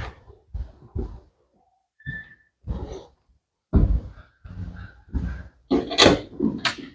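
Irregular thumps and knocks of objects being handled, with a brief high squeak about two seconds in; the loudest knocks come near the end.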